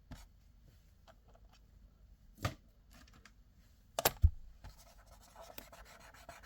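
Hands handling a 12V/24V LED micro connector extension cable: faint scraping and rustling, a sharp click about two and a half seconds in, a pair of clicks around four seconds in, then more rustling near the end.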